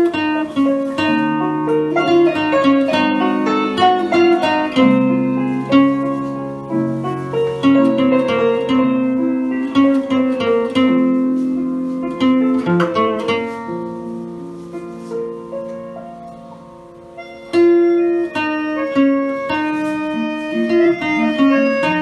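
Solo acoustic guitar playing a melody of plucked notes. It fades quieter past the middle, then a loud note about three-quarters of the way in picks the tune up again.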